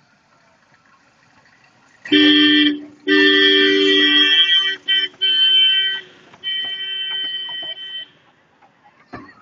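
Narrow-gauge toy train's two-tone horn sounding in about four blasts, a short one then longer ones, the last one quieter, as the train passes close by.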